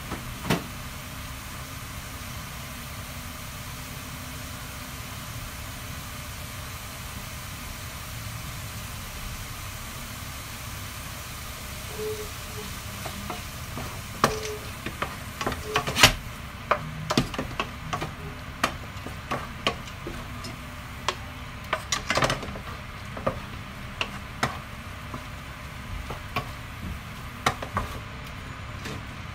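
Chicken pieces sizzling steadily in a frying pan. From about halfway through, a wooden spatula stirs the meat, knocking and scraping against the pan many times in an uneven rhythm.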